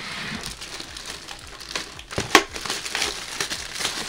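Thin plastic wrapping crinkling and rustling as it is peeled off a cylindrical air-purifier filter, with a sharp knock a little over two seconds in.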